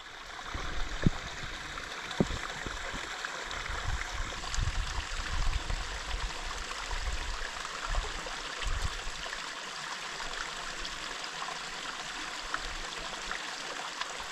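Stream water running steadily over rocks, with irregular low rumbles, likely wind on the microphone, during the first nine seconds or so.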